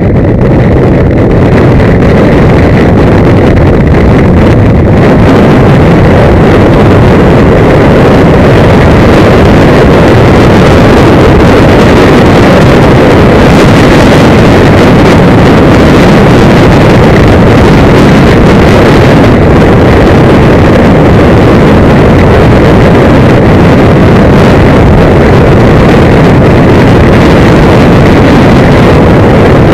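Loud, steady wind roar on a helmet camera's open-backed microphone as a motorcycle rides at motorway speed, covering the engine.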